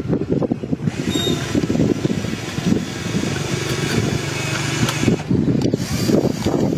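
Small electric track motors of a toy RC excavator running as its tracks grind and crunch over a steel rail and gravel ballast.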